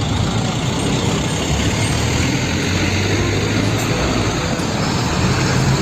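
Truck engine running steadily: a low hum under an even, rushing noise.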